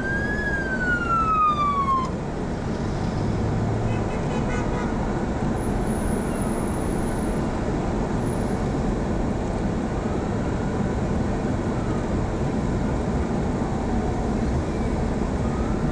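Police car siren wailing, one slow rise and fall that stops about two seconds in, then steady road and engine noise heard from inside a moving squad car.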